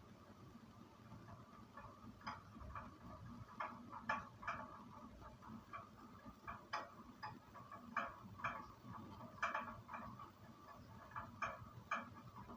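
Faint, irregular clicks and taps, a few a second at uneven intervals, beginning about two seconds in.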